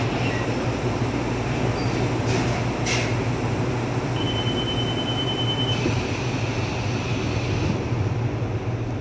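Taiwan Railways commuter electric multiple unit heard from inside the carriage while running: a steady low rumble of motors and wheels on rail. A thin high whine sounds briefly about four seconds in, with two faint clicks shortly before it.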